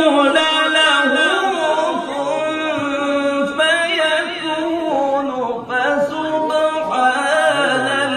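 A male qari reciting the Quran in the melodic tajwid style: long held notes that wind up and down in ornamented pitch turns, with a brief break about two-thirds of the way through.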